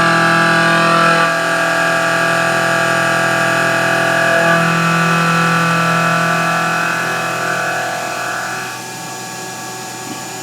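CNC mill with a 1.5-inch carbide-insert face mill at about 2,500 RPM taking a facing pass, a steady multi-tone cutting whine. The whine shifts in tone a couple of times and drops in level about eight and a half seconds in.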